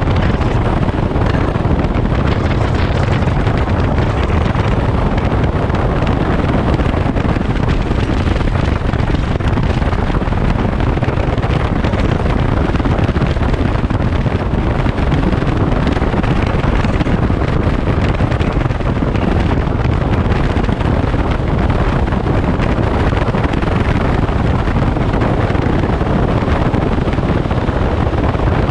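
Steady wind rush buffeting the camera microphone of a Daelim Daystar motorcycle riding at road speed, with the bike's running and road noise mixed in beneath it.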